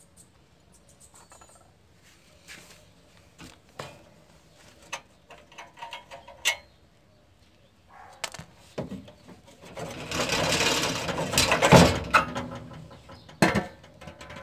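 Scattered metallic clicks and knocks of hand tools on a VW Beetle's exhaust bolts and clamps as the exhaust is taken off, then a louder rattling scrape of about two seconds and a few more knocks near the end.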